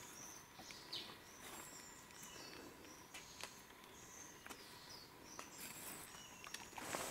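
Faint forest birdsong: short, high, slightly falling chirps repeated again and again, with a few soft clicks and rustles.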